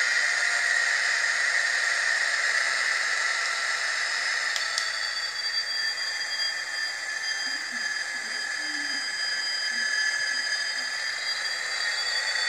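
Hornby TTS sound decoder in an N gauge Class 66 diesel model, playing its locomotive engine sound through the model's tiny speaker: thin and hissy, with no bass. About five seconds in, a click sets off a faint whine that slowly shifts in pitch.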